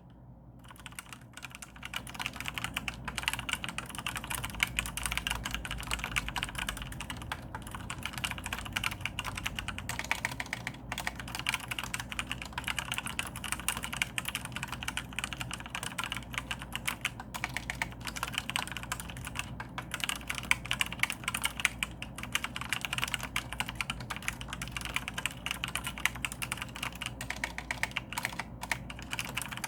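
Maxtill TRON G400K mechanical keyboard with Outemu brown (tactile) switches being typed on quickly and continuously, a dense run of key clacks that starts about a second in.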